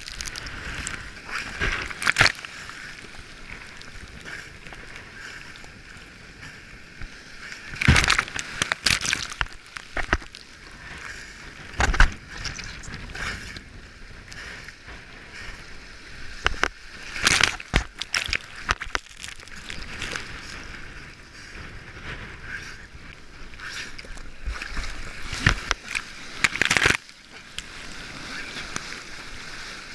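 Rough sea sloshing and rushing around the microphone at water level, with several loud splashes a few seconds apart as waves break over it.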